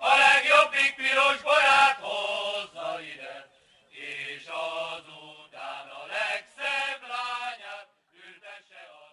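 A man singing a Hungarian song without accompaniment, in short phrases with pauses between them, trailing off near the end.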